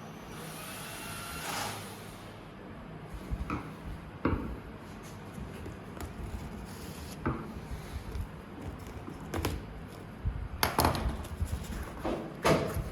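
Parts of a metal DVR rack being handled and fitted together: a brief scraping slide near the start, then scattered knocks and clicks, with the loudest cluster of knocks near the end.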